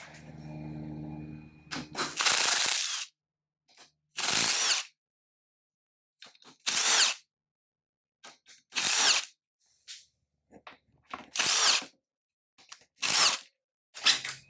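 Cordless power drill/driver running bolts in six short bursts of under a second each, the pitch rising as the motor spins up each time, with pauses between.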